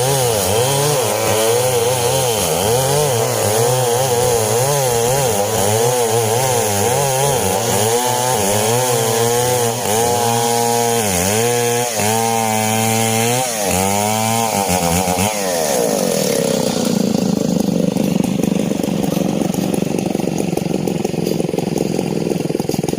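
Two STIHL chainsaws running at high revs while cutting coconut palm logs, their engine pitches wavering and crossing each other. About two-thirds of the way through, the clear engine whine gives way to a rougher, noisier running sound.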